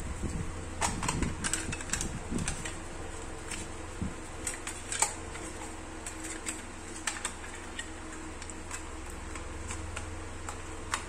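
Clear plastic cassette case and its folded paper insert handled: irregular clicks and clatter of plastic with paper rustling, busiest in the first few seconds and again near the end. A steady low hum lies underneath.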